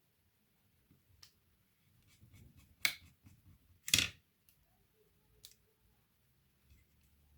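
A few light clicks and taps, then two louder sharp snaps about three and four seconds in, from the parts of an opened laptop being handled.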